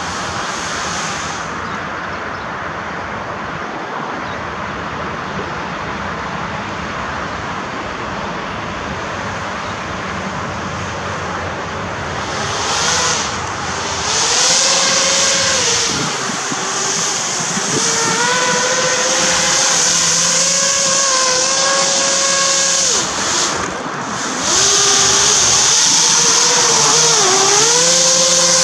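Battery-powered RC hovercraft's electric fans: a steady rushing noise at first, then from about halfway a motor whine that rises and falls with the throttle and grows loud as the craft comes close. The whine drops off briefly a few seconds before the end, then holds high and steady.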